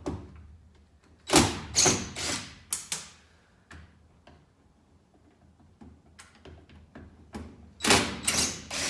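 Clattering and scraping of metal hardware on a school bus's rear emergency door as the door-alarm parts are handled. There are two loud bursts, one about a second and a half in and another near the end, with a few lighter clicks between.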